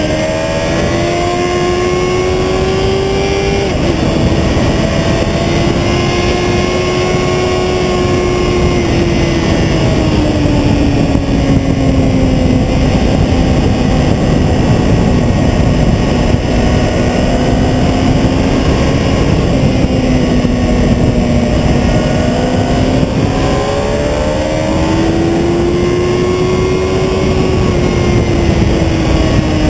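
Sport motorcycle engine running hard at speed, with heavy wind rush from a camera mounted low by the front wheel. The engine note climbs, drops suddenly about four seconds in, falls slowly through the middle and climbs again near the end.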